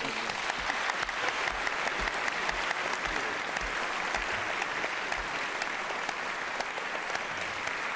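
A large audience applauding steadily, many hands clapping at once, greeting a speaker as he comes up to the lectern.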